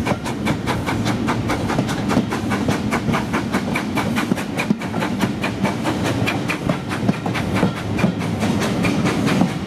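Steam-hauled heritage passenger train running at speed, heard from an open carriage window: a steady rumble from the moving carriages with a rapid clatter of several knocks a second.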